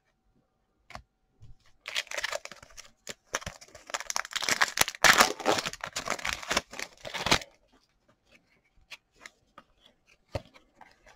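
A trading-card pack's wrapper being torn open and crinkled, a dense run of crackling from about two seconds in to past seven seconds. After it come scattered soft clicks of the cards being handled.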